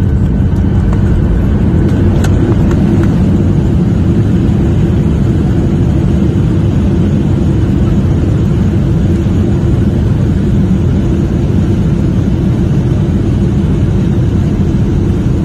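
Steady, loud cabin noise of a jet airliner rolling on the ground after landing, heard from a window seat over the wing: a deep, even rumble of engines and wheels.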